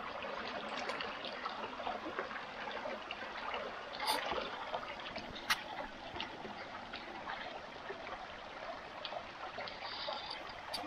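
Creek water flowing steadily, with two short sharp clicks about four and five and a half seconds in.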